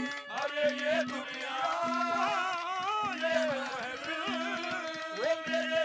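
Haryanvi ragni folk music: a wavering, ornamented melody line over a quick, steady drum beat, with a low held note that repeats in short pulses.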